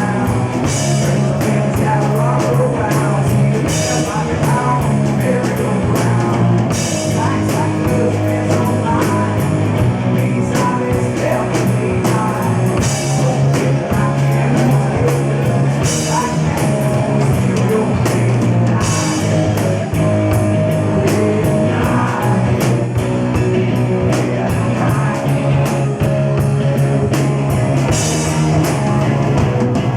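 A rock band playing live, loud and without a break, with a steady driving drum beat and recurring cymbal crashes.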